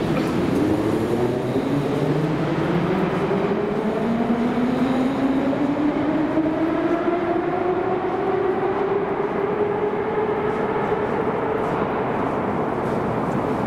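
81-717/714 'Nomernoy' metro train pulling out of the station, its traction motors giving a whine that climbs steadily in pitch as it accelerates, over the rumble of the wheels. The whine levels off near the end.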